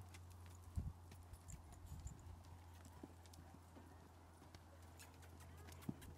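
Faint hoofbeats of a horse moving under a rider on soft dirt, irregular dull thuds with a couple of sharper knocks, one about a second in and one near the end, over a steady low hum.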